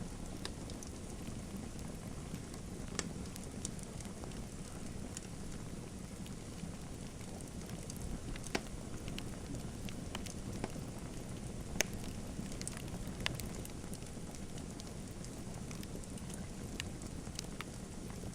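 Wood fire burning in a fireplace: a steady low rush of flame with scattered sharp crackles and pops, a few louder pops about 8 and 12 seconds in.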